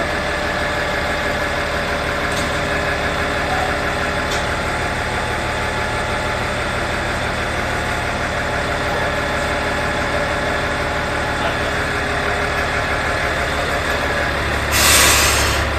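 Diesel engine of a Tenryu Hamanako Railroad TH2100 railcar idling steadily while the car stands at the platform. Near the end comes a short, loud hiss of released air.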